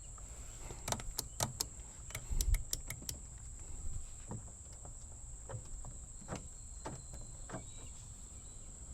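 A quick run of sharp mechanical clicks from controls being worked in a 1992 Acura Integra while its electrics are tested, with a dull thump about two and a half seconds in, then a few single clicks spaced out over the following seconds.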